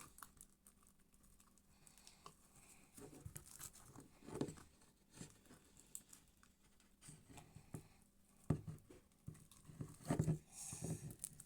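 Sticky slime with small beads mixed in being pulled and squished by hand, making faint irregular crackles and soft sticky pops. The noise is a little louder about four seconds in, and again near the end.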